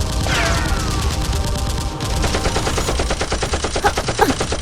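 Rapid automatic gunfire, a steady stream of about ten shots a second, with a falling whistle about a quarter second in.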